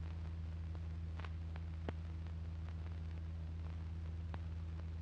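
Quiet pause in dialogue: a steady low electrical hum with a few faint, scattered clicks.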